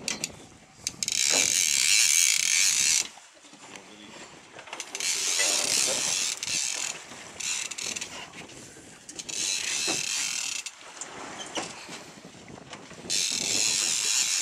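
Multiplier fishing reel on a bent boat rod ratcheting in four bursts of one to two seconds while a small shark is being played on it.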